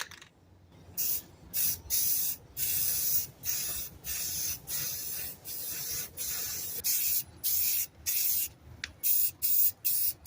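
Rust-Oleum primer spraying from an aerosol can in a series of hisses, the first ones about a second long, then short quick bursts, about two a second, near the end.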